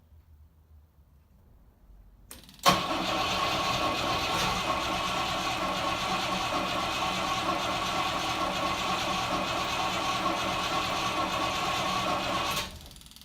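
Rover P5B's 3.5-litre V8 catching suddenly about two and a half seconds in and running steadily, now fed by a newly fitted electric fuel pump. The sound drops away sharply near the end.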